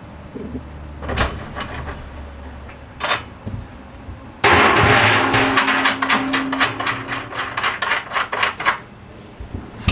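A spare tire being taken off a trailer-mounted spare tire holder: a few separate knocks, then from about halfway a loud, rapid clattering and rattling of the mount's hardware lasting about four seconds.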